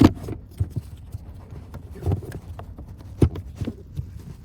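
Hard plastic parts of the cabin filter housing knocking and clicking as they are handled and pushed into place: a sharp knock at the start, then scattered taps, with louder knocks about two and three seconds in.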